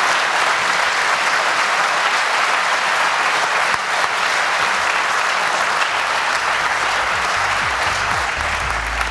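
Audience applauding steadily, a dense even clapping that does not let up. A low rumble joins in during the last two seconds or so.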